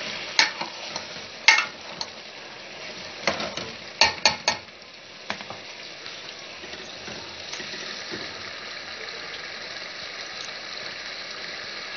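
Aloo keema (minced meat and potatoes) sizzling in oil in a large metal pan while a metal ladle stirs it, knocking sharply against the pan about nine times in the first five seconds. After that only a steady sizzle; the oil has separated out, the sign that the keema is done.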